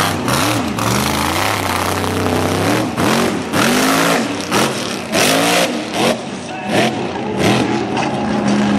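Mega truck engine revving hard, the pitch climbing and dropping again and again as the throttle is worked, with the rush of big tyres churning up dirt.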